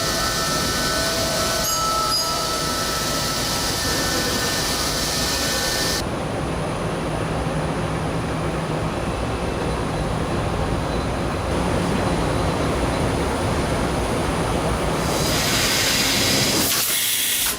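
Doosan DVF 6500 five-axis CNC machining center running a cut: a steady, loud machining noise with a few faint steady tones. A high hiss in it drops away about six seconds in and comes back near the end.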